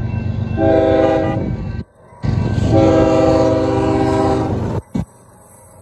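CSX diesel locomotive's air horn sounding at a road grade crossing: a shorter blast, then a longer one about two seconds long, over a steady low rumble. This is the crossing warning signal.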